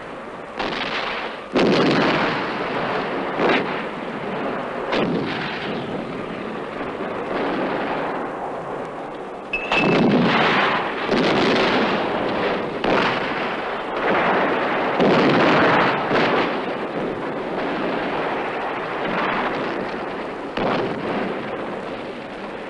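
Film battle sound effects: a run of heavy explosions from shellfire, several hitting hard with a long decay, and gunfire going on between them.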